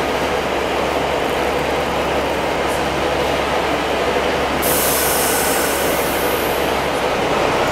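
Taiwan Railway TEMU2000 Puyuma electric train pulling into a platform, with a steady rumble and hum. About two-thirds of the way through, a loud hiss of air lasts about two seconds and then cuts off, typical of the air brakes as the train comes to a stand.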